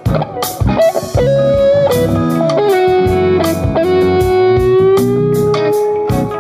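Band playing blues-rock with drums: an electric guitar plays a short phrase, then sustains one long note with a slight bend from a little under three seconds in until near the end.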